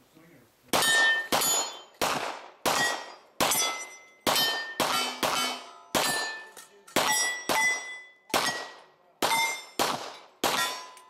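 A string of about fifteen handgun shots fired one after another at steel targets, at a steady pace of roughly one to two a second. Each shot is followed by the ringing of the struck steel plate.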